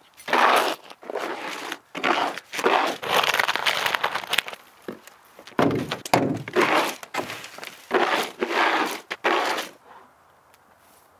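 Plastic dustpan scraping and scooping loose sawdust off concrete and dumping it into a plastic trash can: a run of short, gritty scrapes with a duller thump about six seconds in, stopping about nine and a half seconds in.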